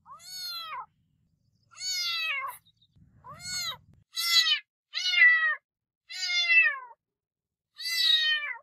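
Domestic cat meowing repeatedly: seven separate meows of about half a second to a second each, each rising and then falling in pitch, with short pauses between them.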